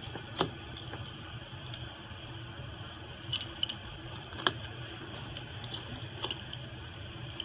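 Scattered light clicks and taps of small repair tools and parts on an iPhone SE being taken apart, about five in all, over a steady background hum.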